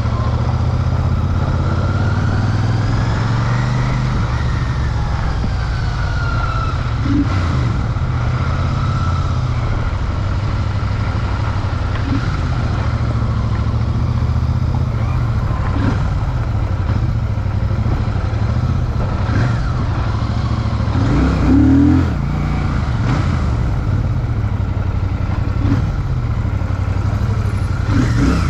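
Royal Enfield Shotgun 650's 649 cc twin-cylinder engine running steadily on a ride. The pitch rises and falls once about two to six seconds in, and there is a brief louder patch around twenty-one seconds in.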